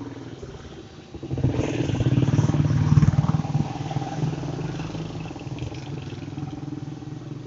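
Small motorcycle engine running steadily while riding along a street. About a second in the sound swells sharply, is loudest around three seconds in, then settles back to a steady run.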